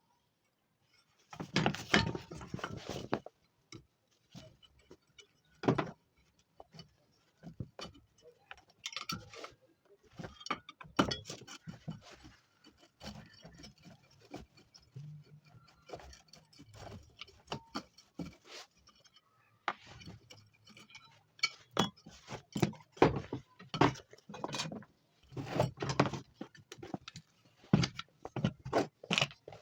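Irregular clinks, clicks and knocks of small metal parts and tools being handled while an electric dry iron is taken apart.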